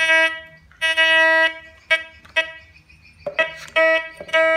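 Fisher Gold Bug Pro metal detector giving buzzy target beeps as its search coil is swept over metal objects: about seven tones, some short and one held for about half a second, each one signalling a detected metal target.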